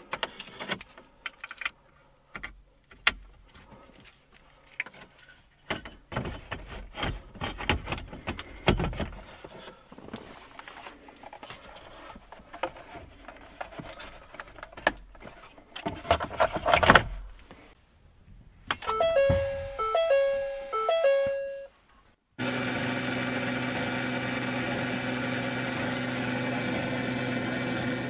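Hands fitting a car's radio module and plastic dash trim back into the centre console: scattered clicks, rubs and knocks. Then comes a short run of electronic chime tones in quick steps. After that a steady hum and hiss begins suddenly and cuts off near the end.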